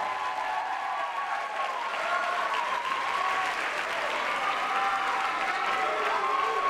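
Audience applauding as the music ends, with voices calling out over the clapping.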